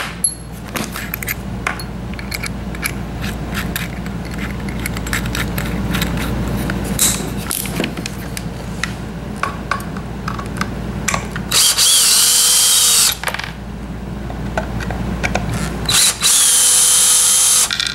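Cordless drill/driver with a long bit running in two short bursts, about two-thirds of the way in and again near the end, backing screws out of a wooden mounting board. Before the first burst there are scattered clicks and knocks.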